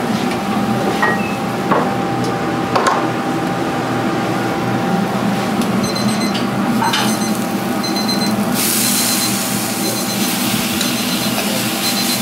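Kitchen work sounds over a steady machine hum: a few sharp knocks and clinks, then a run of short, high electronic beeps repeating in the second half, with a brief hiss just after the beeps begin.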